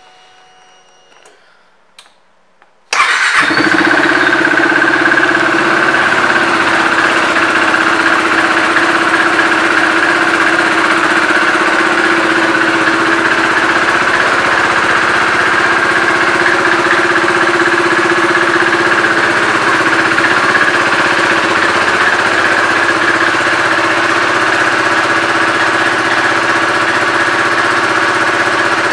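2015 KTM RC 390's single-cylinder engine starting up about three seconds in, after a few faint clicks, then idling steadily.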